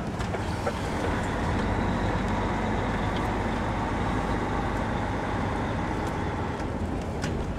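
DAF 95 XF truck's diesel engine running steadily, a continuous low rumble with a faint hum above it.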